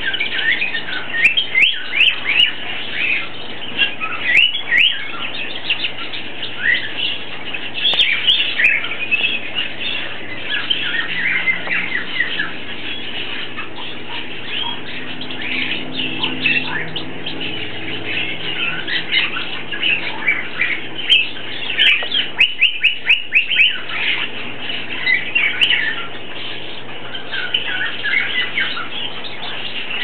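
Domestic canary singing a long, continuous song of quick chirps, warbles and fast trills, with a burst of rapid repeated notes a little past the middle.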